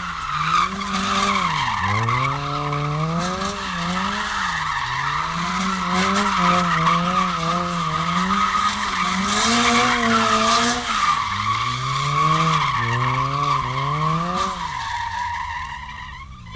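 Car drifting, its tyres screeching without a break while the engine revs climb and drop every second or two as the throttle is worked. Near the end the screech rises sharply in pitch.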